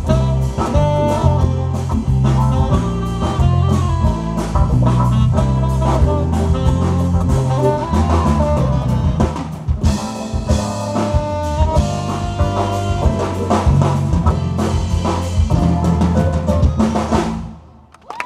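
Live band with drum kit, guitar and keyboards playing an instrumental passage, with a moving bass line under it; the music stops about seventeen seconds in.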